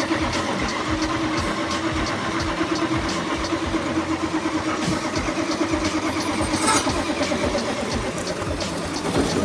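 A vehicle engine running steadily, with a steady hum and regular light ticks.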